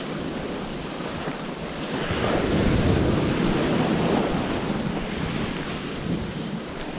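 Barents Sea surf washing in around the legs of someone wading, with wind buffeting the microphone. A wave surges in about two seconds in, is loudest for a couple of seconds, then eases back.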